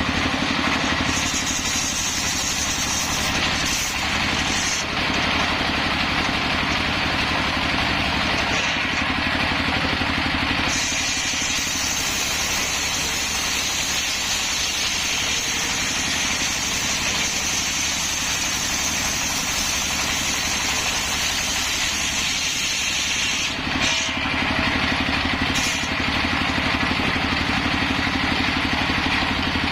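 Circular saw rig running steadily while its blade cuts hard coconut-palm wood. A high whine joins the running sound about a second in for a few seconds, then again for a long stretch from about 11 to 23 seconds.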